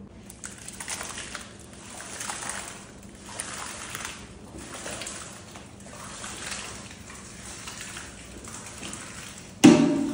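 White liquid marinade pouring and splattering from stainless steel pans onto sliced beef, in a series of sloshing pours about a second apart. Near the end a sudden loud metallic clang rings out.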